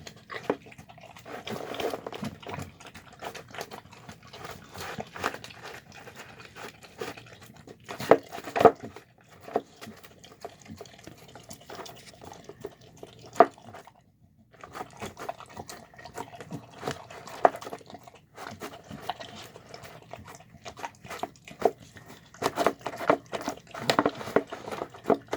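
Dog eating wet chicken-and-rice slop from a bowl: irregular wet chewing and clicking mouth noises, with a short pause about halfway through and busier eating near the end.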